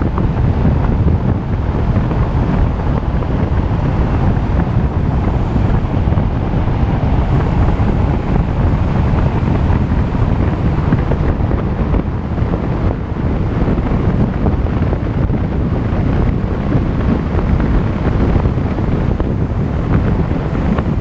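Wind buffeting a GoPro's microphone on a moving bicycle: a steady, loud, low rumble.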